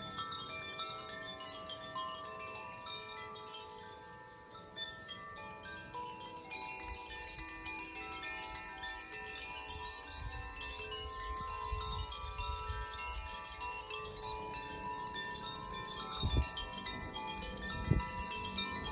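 Tuned hand-held wind chimes, swayed so that their rods ring in many overlapping, lingering notes. A low rumble sits underneath from about a third of the way in, with a couple of soft thumps near the end.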